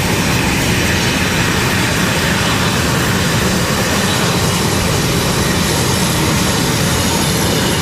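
A-10C Thunderbolt II's twin TF34 turbofan engines running at taxi power as the jet rolls past, a loud, steady jet noise.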